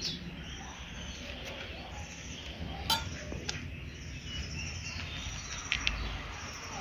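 Quiet background with a few light clicks and clinks, about three seconds in and again shortly before the end, as masala paste is scooped by hand from a steel bowl and spread over boiled eggs on a banana leaf.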